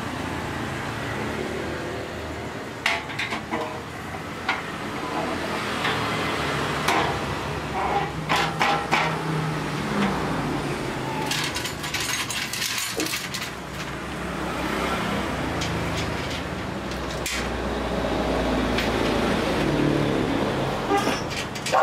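Scattered metallic clicks, knocks and clatters of sewing-machine stand and table parts being handled during assembly, over a steady background rumble. The knocks cluster most densely around the middle.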